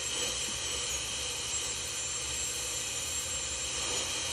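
High-speed dental handpiece running with a steady high whine and hissing air, its pitch wavering slightly as it cuts out a temporary filling.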